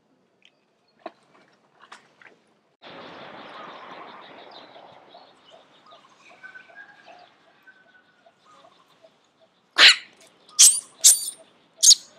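Baby macaques squealing: a run of short, sharp, loud cries near the end. Before them there are faint scattered clicks and a soft rustling noise that fades out.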